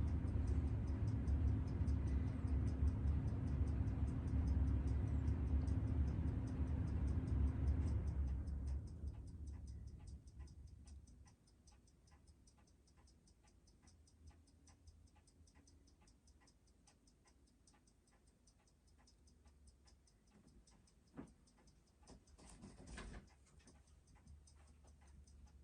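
Steady, rapid, regular ticking, with a low rumbling noise over it that fades out about nine to eleven seconds in.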